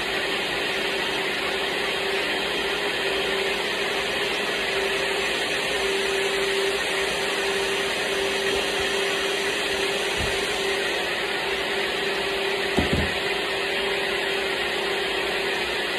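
A blender motor running steadily at one speed, a loud even whir with a steady hum underneath, and two faint low knocks late on.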